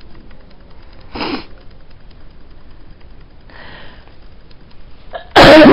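A person sniffing close to the microphone about a second in, then a loud, distorting vocal burst of breath and voice near the end.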